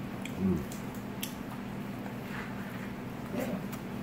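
A short "mm" of enjoyment, then soft wet chewing and mouth clicks from eating boiled crawfish tail meat, with a few scattered sharp clicks over a steady low hum.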